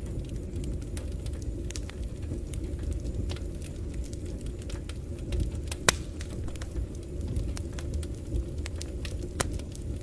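Logs burning in a firebox: a steady low rumble of flames with scattered crackles and small pops. The sharpest pop comes about halfway through, and another near the end.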